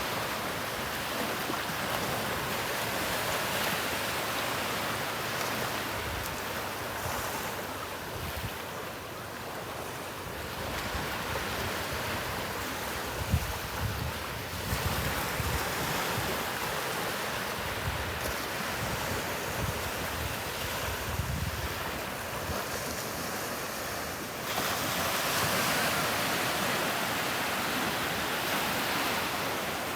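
Gulf of Mexico surf washing onto the beach, a steady rushing hiss that swells louder about three quarters of the way through as a wave comes in. Wind buffets the microphone with low rumbles in the middle.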